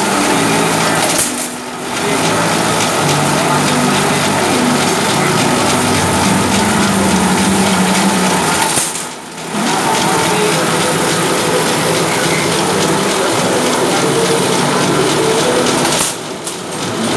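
Wire-straightening machine running with wire feeding through it: a loud, continuous mechanical rattle that drops off briefly three times.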